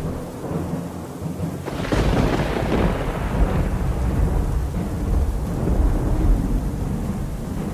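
Thunderclap about two seconds in, followed by a long rolling rumble over steady rain.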